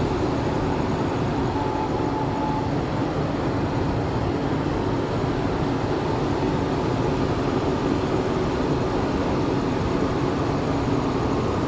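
Train running, with a steady, even rolling noise and faint held tones underneath.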